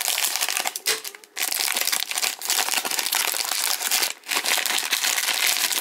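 Plastic hockey-card surprise bag crinkling as it is handled and torn open: a dense, continuous crackle of the wrapper, broken by two short pauses.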